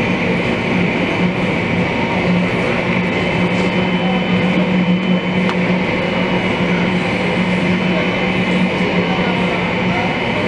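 Boeing 777-200ER's GE90-85B engines idling with the aircraft stopped at the gate, heard through terminal window glass. A steady low hum with a thin high whine over it.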